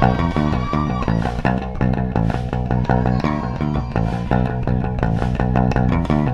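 A band playing live, an instrumental passage of quick, evenly repeated plucked string notes over a low bass line.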